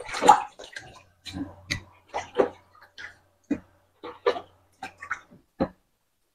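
Water splashing and sloshing in a bowl as raw chicken legs are rinsed by hand and lifted out, a run of short irregular splashes with the loudest right at the start.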